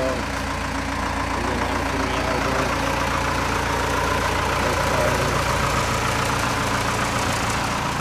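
Case 580M backhoe loader's diesel engine idling steadily.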